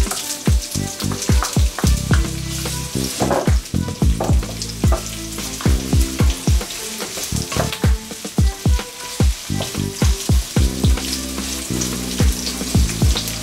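Sliced onions sizzling and frying in hot oil in an enamel pan, stirred with a wooden spatula. Underneath, a steady beat of low thumps runs throughout.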